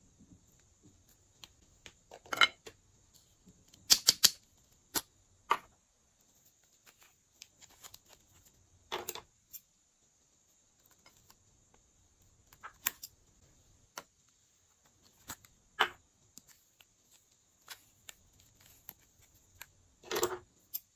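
Small scissors snipping lipstick bullets off their tubes, with the plastic lipstick tubes clicking as they are handled: about ten sharp, separate clicks a second or a few seconds apart.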